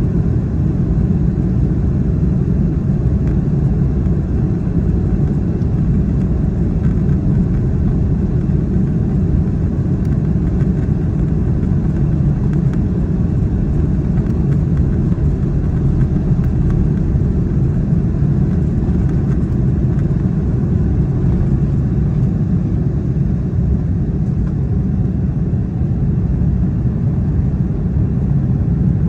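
Steady cabin rumble of an Airbus A330-200 at takeoff power, with engine thrust and runway noise through the takeoff roll, lifting off near the end.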